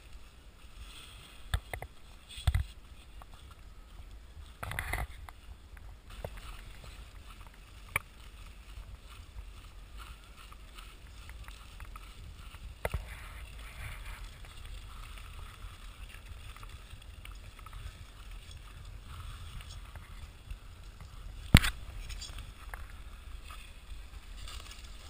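Ice skates and footsteps on natural ice: a steady low rumble with a faint scraping hiss, broken by scattered sharp clicks and knocks. The loudest knock comes about three-quarters of the way through.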